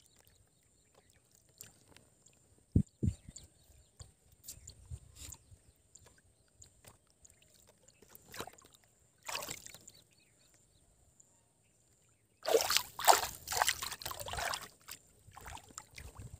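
Shallow river water sloshing and splashing as a person's hands and legs move through it, with small scattered splashes at first and a louder run of splashing about twelve seconds in.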